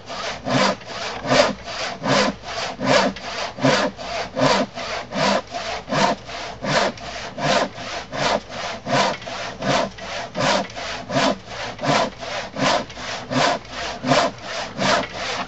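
Sharp crosscut handsaw cutting across a thick glued-up wooden workbench top, in a steady, even rhythm of strokes about two to three a second.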